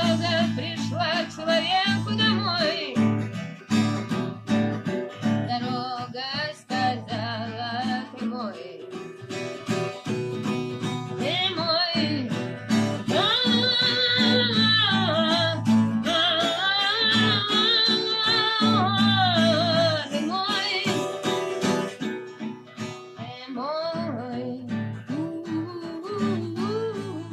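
Acoustic guitars playing an instrumental passage: strummed chords underneath and a wavering lead melody that bends in pitch, loudest in the middle.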